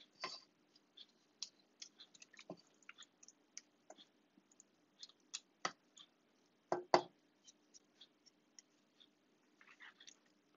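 Wooden spoon stirring cooked apple pie filling in a saucepan: many soft, irregular clicks and scrapes with a few louder knocks of the spoon against the pan, over a faint steady hum.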